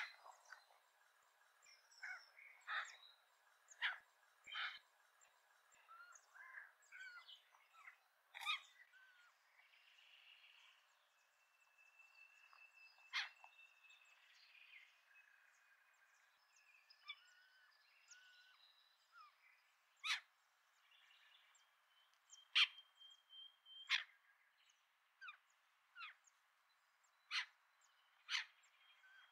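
Several birds calling: about ten sharp single notes at uneven intervals, with scattered chirps and a few thin whistled notes held for a second or two between them.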